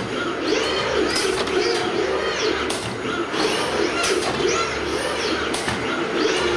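Bag palletising line running, with a sharp clack about every second and a half over steady machine noise. Small birds chirp and a pigeon coos in the hall throughout.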